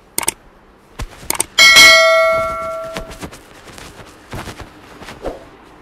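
Subscribe-button sound effect: a few quick mouse clicks, then one loud notification-bell ding that rings and fades over about a second and a half, followed by a few fainter clicks.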